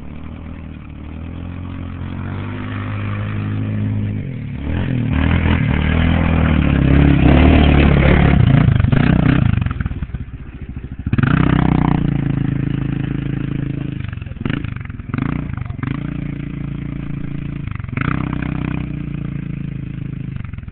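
ATV engine running and revving as it is ridden: it builds to its loudest about halfway through, drops off sharply, then picks up again with a few quick dips and surges.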